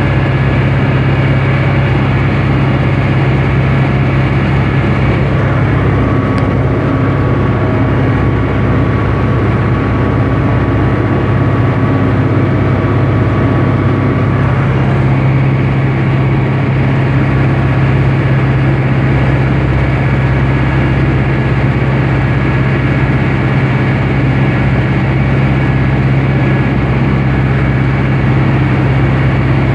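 Diesel engine of a Universal 651 tractor running steadily under way, heard from the cab as an even, loud drone; the note shifts slightly about halfway through.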